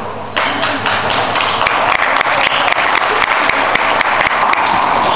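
Audience applauding: a dense patter of many hands clapping that starts suddenly about half a second in and keeps on steadily.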